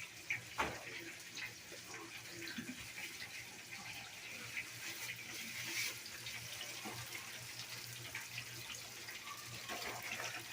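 Panko-breaded shrimp deep-frying in hot grease: a steady sizzle with scattered small crackles and pops, and a sharp knock about half a second in.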